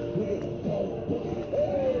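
Music with overlapping, gliding, voice-like melody lines.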